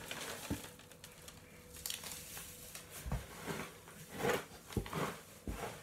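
Hands rustling and stirring loose wood-shaving bedding in a plastic hamster cage tray, with scattered crinkling and a few soft knocks.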